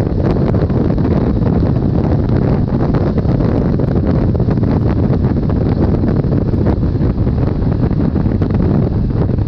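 Wind buffeting an action camera's microphone on a Triumph Tiger 800 XCx at road speed, a steady low rumble with the bike's three-cylinder engine running underneath.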